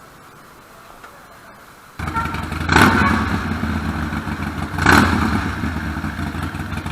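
Harley-Davidson Forty-Eight's V-twin engine with an aftermarket exhaust starting about two seconds in, revved twice, then idling.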